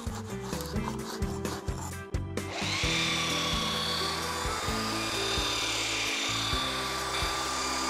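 Scraper scraping loose paint flakes off a weathered timber handrail in short strokes, then a belt sander starts about two and a half seconds in and runs steadily with a high whine, over background music.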